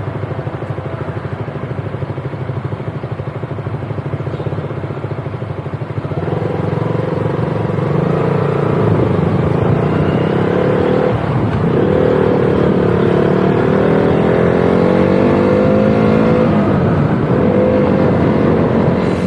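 Motorcycle engine ticking over with an even low pulse, then from about six seconds in pulling away and getting louder, its note rising and dropping back a few times as it goes up through the gears.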